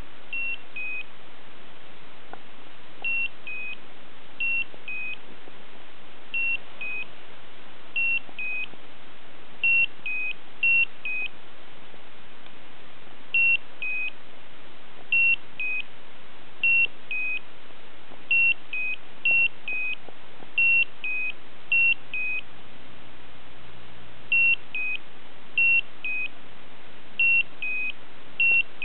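Slendertone Men's Abs electric ab-toning belt beeping in two-note pairs, a short higher beep followed by a slightly lower one ('beep-bep'), repeating every one to two seconds at uneven intervals with a few longer pauses. The owner finds no warning behind it (battery full, no connection or pad error) and suspects the pads may be too cold or dry.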